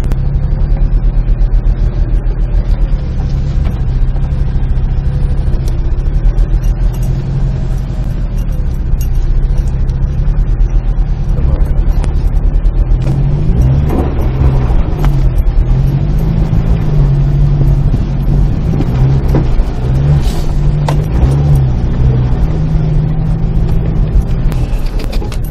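4x4 vehicle's engine running as it drives off-road, its pitch rising and falling several times in the middle as the throttle is worked.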